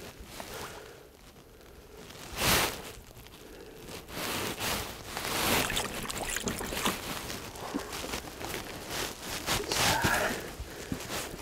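Rustling, scuffing and small knocks of an angler moving about and handling fishing gear at the water's edge, with one brief loud noise about two and a half seconds in.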